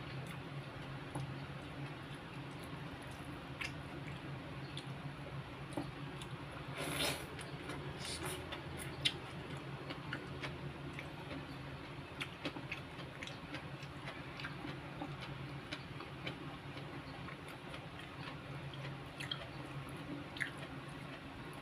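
Close-up chewing and soft wet mouth noises of someone eating rice, salted fish and greens by hand, with scattered small clicks and a short louder rustle about seven seconds in, over a steady low hum.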